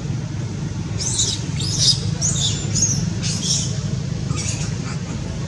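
A baby macaque giving about six short, high-pitched squeaks, some sliding in pitch, over a steady low rumble.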